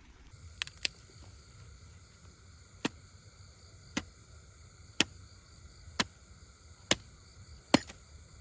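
Night chorus of crickets and other insects, a steady high chirring, with a sharp click about once a second over it.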